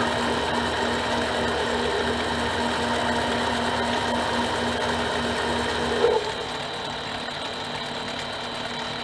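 Harbor Freight mini lathe running, taking a 0.150-inch-deep cut in steel: a steady machine hum with several steady tones. About six seconds in, one pulsing tone stops and the sound gets a little quieter.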